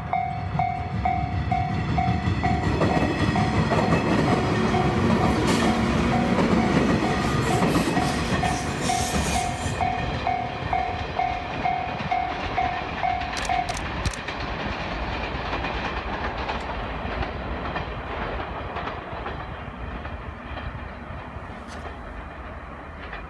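JR 115-series electric multiple unit pulling away and accelerating, its motors and wheels on the rails fading as it draws off, with rail-joint clatter. Its air compressor can be heard running and then stopping, with a hiss that cuts off about ten seconds in. A pulsing ringing tone, about two beats a second, goes on until about fourteen seconds in.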